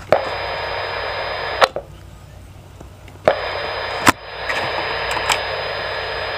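Steady radio static hiss from a receiver's speaker, cut on and off by clicks: a stretch of about a second and a half, a quieter gap, then about four seconds more. This is the FM channel heard on the scanner while the CB is keyed and unkeyed on FM.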